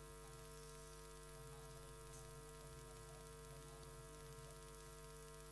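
Near silence: a steady, faint electrical hum with a light hiss.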